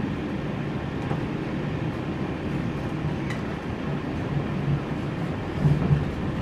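Passenger train running, heard from inside the carriage: a steady rumble and low hum of the wheels and running gear, swelling a little louder near the end.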